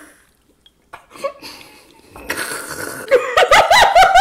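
Women laughing hard. The first two seconds are nearly quiet, then a noisy outburst turns into a quick run of loud laughs.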